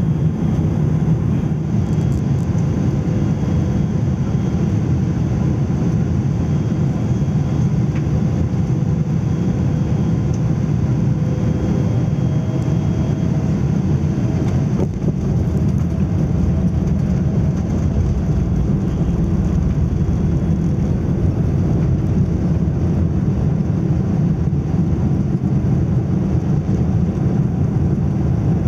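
Steady cabin noise of a Boeing 777-300ER on final approach: the low, even sound of its GE90 engines and the airflow, heard from inside the cabin, with faint thin whines coming and going.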